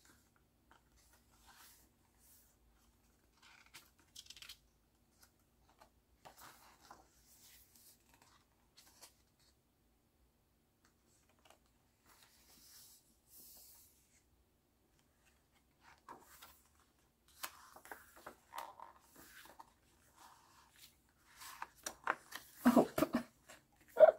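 Pages of a glossy photobook album being turned and handled: soft, scattered paper rustles and slides. In the last couple of seconds a flurry of louder sharp handling noises comes as the album's CD is taken out and held.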